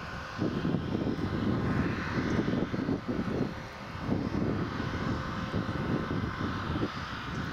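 New Holland tractor's diesel engine running steadily as it drives along, a continuous low drone.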